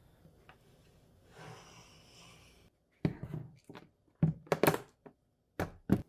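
Kitchen things being handled and set down on a countertop, with a few sharp clunks and knocks starting about three seconds in. The last knock comes as a white ceramic plate is set down.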